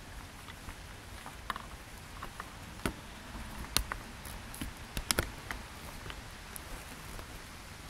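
Scattered clicks and taps of hands handling a bicycle's handlebar controls and fittings close to the microphone, with a cluster of sharper clicks in the middle.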